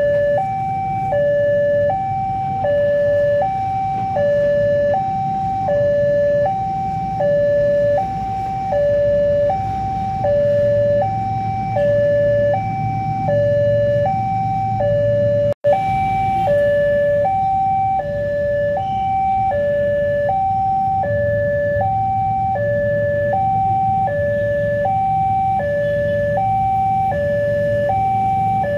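Railway level-crossing warning alarm sounding while the barrier is down for an approaching train: an electronic two-tone signal alternating steadily between a high and a low tone, each about half a second. A low rumble of waiting traffic runs underneath, and the sound breaks off for an instant about halfway through.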